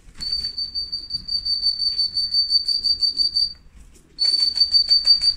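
Pea whistle blown in two long trilling blasts, a high warbling tone broken by a short pause just before the last second or so, calling racing pigeons down to the loft.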